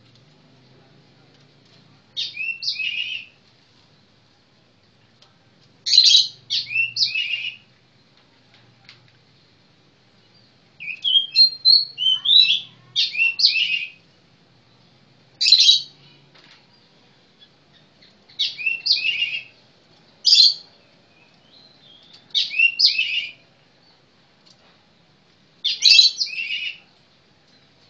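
Magpie robin (kacer) singing: short phrases of quick whistled notes, each about a second long, repeated every few seconds.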